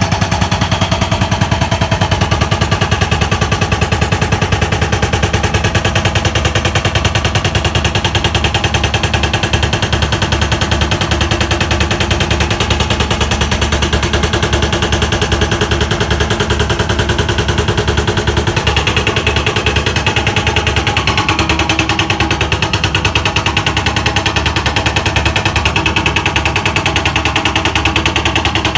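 A jackhammer hammering without pause in rapid, even strokes. Its tone changes slightly about two-thirds of the way through.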